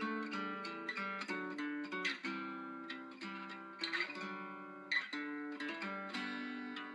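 Background music: an acoustic guitar playing plucked notes and chords, each note struck and left to ring.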